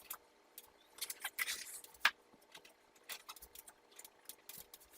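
Light clicks and short scrapes of a utensil and container being handled while frosting a cake, the sharpest click about two seconds in, over a faint steady hum.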